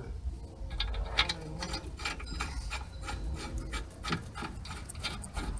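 Irregular metal clicks and scraping from hands working at the front brake caliper bracket and its new pads, starting about a second in and coming a few times a second.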